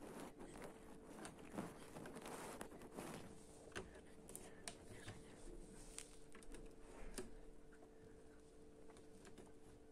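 Faint, scattered clicks and light rustles of plastic building-block parts being handled and pressed together by gloved hands, over a faint steady hum.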